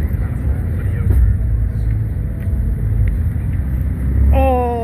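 Car engines idling and driving past in a steady low rumble. Just after four seconds in, a higher pitched tone slides down in pitch over about a second.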